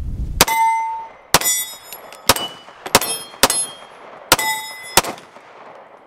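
About seven 9mm pistol shots from a Cosaint Arms COS 21 all-steel double-stack 1911, fired at an uneven pace of roughly one a second. Several hits leave steel plate targets ringing with a clear metallic tone.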